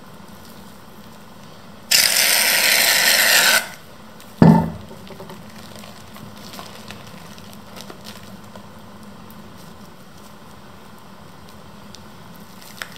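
Hands squishing and kneading a sticky shaving-cream slime in a bowl: quiet wet squelching and rubbing. About two seconds in comes a loud hiss lasting under two seconds, and a short thump follows a little later.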